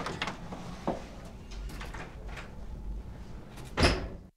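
A few light taps and clicks, then a louder door sound just before the end, which cuts off abruptly into silence.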